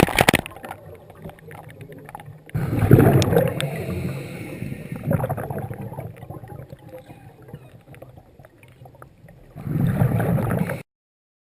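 Scuba diver's exhaled bubbles rushing and gurgling out of the regulator, heard underwater through the camera housing, in surges a few seconds apart like breaths. Near the end the sound cuts off abruptly to dead silence.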